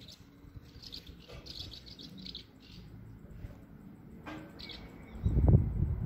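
Swallows twittering around their nest under the eaves: clusters of short, high chirps. About five seconds in, a louder low rumble comes in.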